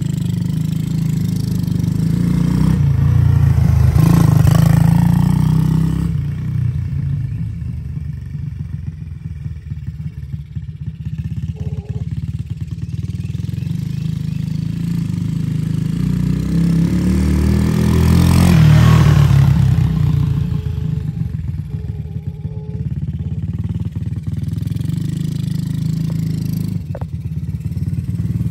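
Single-cylinder four-stroke engine of a 1985 Yamaha 225 DX three-wheeler running as it is ridden. It gets louder twice as it passes close, about four seconds in and again near eighteen seconds with a rise in revs, and fades as it rides away between.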